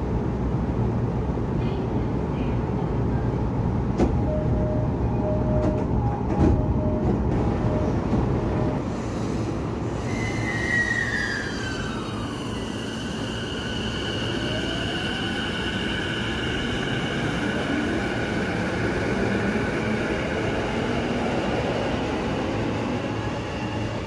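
Saikyo Line electric train at a station platform: a steady rumble of wheels and running gear, with a short run of beeps in the first half. From about ten seconds in, the motor's whine comes in as a falling glide and then holds as steady high tones.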